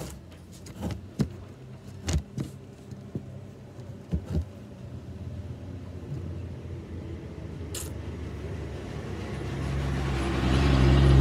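A few light handling knocks and clicks in the first few seconds, then a motor vehicle's engine rumble that grows steadily louder through the last few seconds.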